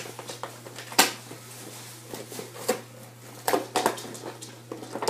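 Cardboard box and plastic packaging of a Nerf Triad EX-3 toy blaster being torn open and handled: irregular rustling, crinkling and clicks, with one sharp click about a second in.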